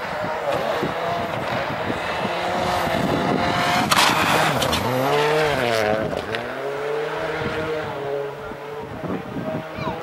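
Rally car engine running hard on a snow stage, with a loud sharp crack about four seconds in. After it, an engine note rises, dips briefly as if through a gear change, then climbs and holds steady.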